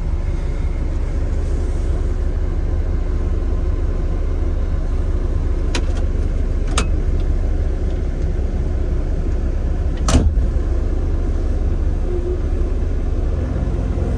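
Excavator engine running steadily with a deep rumble under digging work, with two sharp clicks a little before the middle and a louder knock about two-thirds of the way through.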